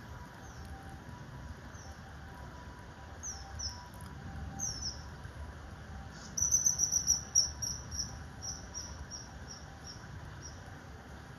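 Common kingfisher calling: scattered thin, high, falling notes, then about six seconds in a fast run of loud, shrill piping notes, about four a second, that slows and fades. A steady low background rumble runs underneath.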